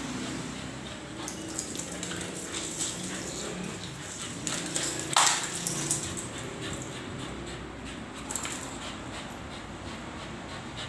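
A Shih Tzu and a corgi play-fighting: low growling with scattered clicks on the tiled floor, and one sharp, louder noise about five seconds in.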